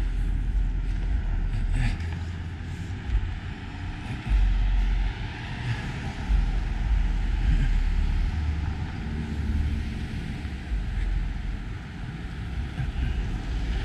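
Street traffic passing: cars going by on the road, with a swell of tyre noise about midway, over an uneven low rumble.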